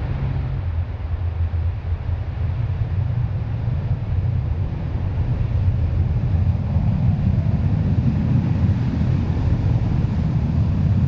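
Piston engine of a propeller aircraft running with a deep, steady drone, growing louder in the second half.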